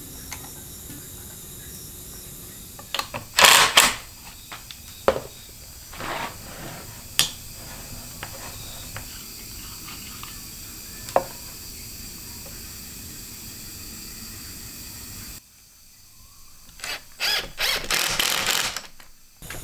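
Scattered sharp knocks and clicks of wooden parts being handled on a workbench, then, near the end, a power drill running in several short bursts, driving a screw into the wooden frame.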